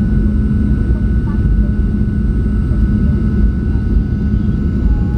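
Jet airliner cabin noise: a steady, loud rumble of engines and airflow with a thin steady whine above it, heard from inside the passenger cabin.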